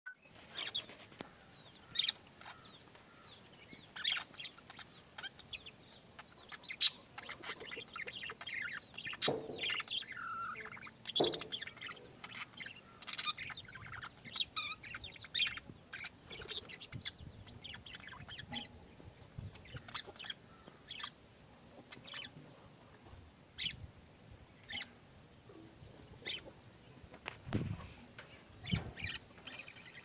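Budgerigars chirping and chattering in short, sharp chirps, one every second or so, with a few louder calls scattered among them.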